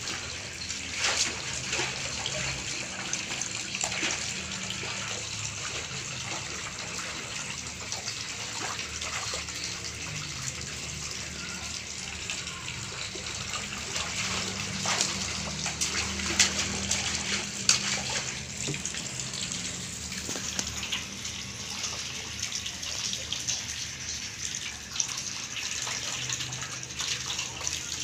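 A toddler splashing his hands in water in a large aluminium basin: an ongoing slosh with irregular splashes and slaps, the loudest about 15 to 18 seconds in.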